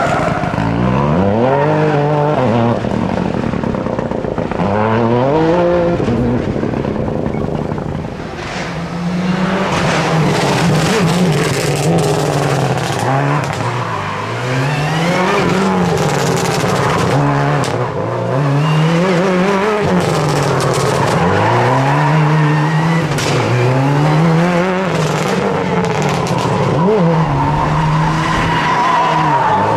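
Rally cars sliding through tight tarmac turns: a Toyota GR Yaris Rally2's turbocharged three-cylinder revving with squealing tyres, then from about eight seconds in a Subaru WRX rally car's turbocharged flat-four revving up and dropping again and again, many times over, with tyre squeal in the corners.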